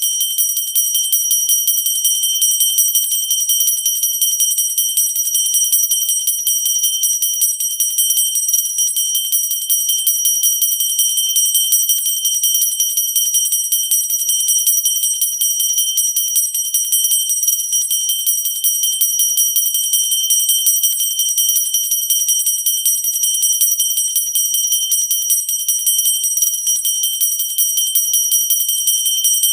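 Handheld pooja bell rung without pause, its clapper striking so rapidly that the strokes run together into a continuous high ringing.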